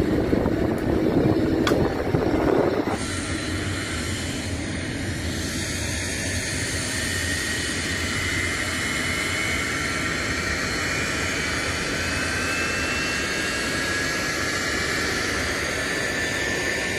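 Lockheed C-130 Hercules' four turboprop engines running: a steady engine roar with a high whine that slowly rises in pitch. A cut about three seconds in changes a rougher, louder rumble into the smoother whine.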